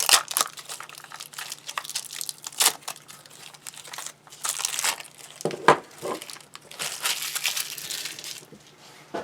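Packaging being unwrapped by hand: crinkling and rustling in irregular bursts, with a couple of light knocks about halfway through.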